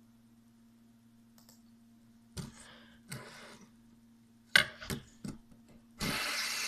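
A few clicks and knocks of the fidget spinner being handled, then about six seconds in it is flicked into a spin and whirs steadily.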